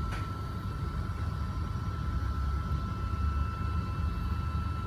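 Colido FDM 3D printer running at the start of a print: a steady hum from its fans and stepper motors with a thin steady whine over it, and a faint click right at the start.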